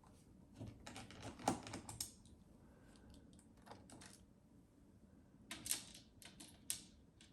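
Faint, scattered clicks and taps of small screws and a magnetic Phillips screwdriver against a laptop's plastic case as the case screws are taken out and set down, in a cluster about a second in, a single click near the middle, and another cluster near the end.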